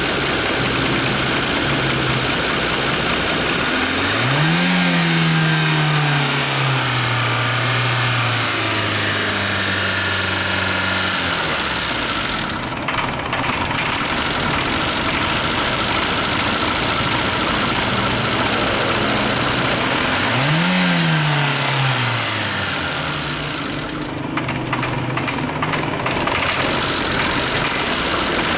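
Car engine idling with a dense, steady clatter, revved twice: about four seconds in and again about twenty seconds in, each time rising quickly in pitch and then falling back to idle over several seconds. The engine is presented as one that knocks.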